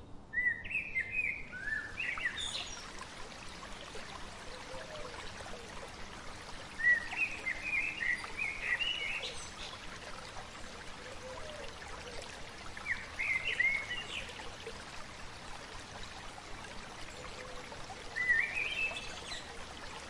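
A songbird singing short, quick warbling phrases of chirpy rising and falling notes, four phrases spaced about five to six seconds apart, over a steady background hiss.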